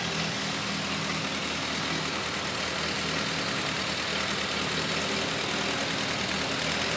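1949 Ford tractor's four-cylinder engine running steadily at idle.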